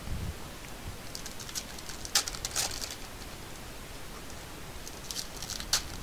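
Crinkling foil wrappers of 2019-20 Panini Prizm basketball card packs and trading cards being handled, in short crackly bursts about two seconds in and again near the end.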